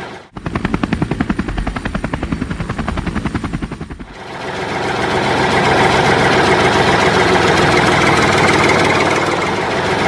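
Vehicle engine sound laid over a toy construction-vehicle scene. For the first few seconds it is a rapid, even thudding of about ten beats a second, like a helicopter rotor. About four seconds in it gives way to a steady engine drone that swells up and holds.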